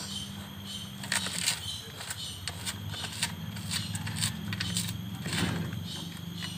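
Sun bear ripping the fibrous husk off a coconut with its claws and teeth: a run of crackling tears and scratches, the loudest about five seconds in, over a low steady hum.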